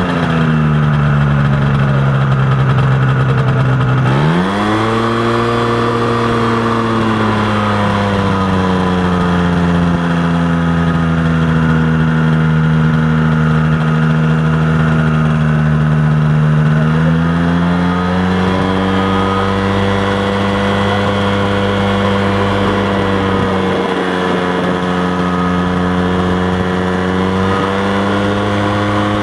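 Light aircraft's piston engine and propeller running with the engine speed changing: it drops at first, picks up sharply about four seconds in, settles, and rises again a little past halfway.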